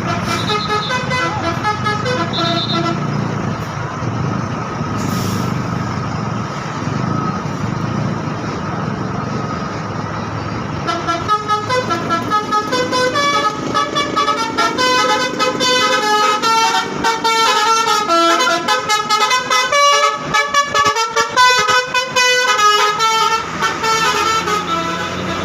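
A bus's telolet horn, a set of electrically switched air horns, plays a fast tune of quickly changing notes, starting near the middle. Before that the bus's engine runs, with a few held horn notes.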